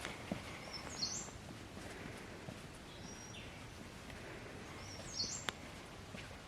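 Faint outdoor ambience with a bird chirping: short high calls about a second in and again around five seconds, with fainter single notes between.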